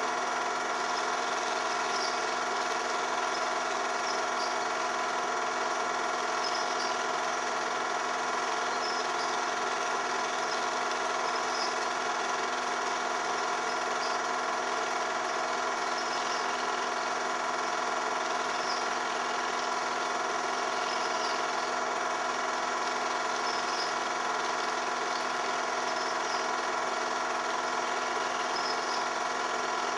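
Home-movie film projector running steadily, its motor and mechanism making an even, unchanging hum.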